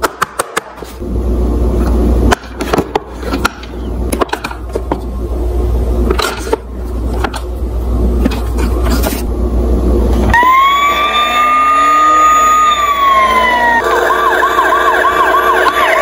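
Clicks and knocks of a plastic Tonka toy police car being handled, then the toy's electronic siren: a rising wail that holds and falls, switching to a fast yelp of about four warbles a second.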